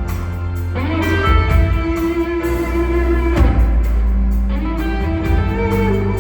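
Rock band music: an electric guitar plays long held notes, one sliding up about a second in, over bass guitar and drums with cymbals.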